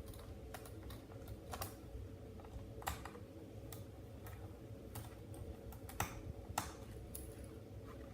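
Small irregular clicks and ticks of a screwdriver working the screws out of a laptop's plastic memory compartment panel, over a faint steady hum.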